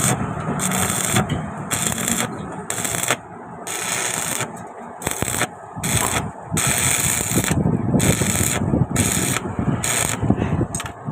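Repeated rasping, scraping strokes on metal, roughly two a second and a little uneven, like a wire brush or scraper worked back and forth over the chassis steel.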